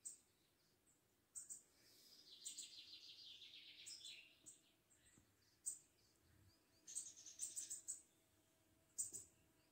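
A small bird chirping faintly: short high chirps scattered throughout, a rapid trill about two to four seconds in, and a quick run of chirps around seven to eight seconds in, over a faint steady hum.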